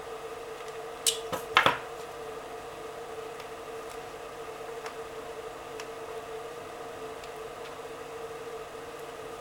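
A nylon LED dog collar being handled: a short cluster of sharp clicks and rustling about a second in, over a steady background hum.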